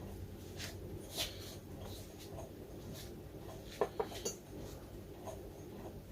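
A few light clicks and taps of small parts being handled, the sharpest three close together about four seconds in, over a low steady hum.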